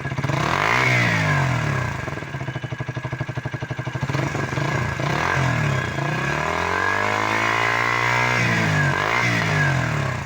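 KTM Duke motorcycle engine revved through its exhaust muffler while standing: a quick rev about a second in, a choppy idle, another rev, then a longer climb in revs and two short blips before the sound drops away at the end.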